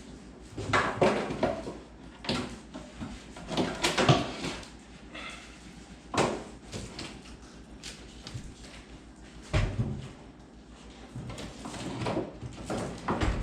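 Irregular knocks, clicks and scraping rustles of a microwave's wall mounting plate being handled and fitted against the wall, with two heavier thuds about ten seconds in and at the end.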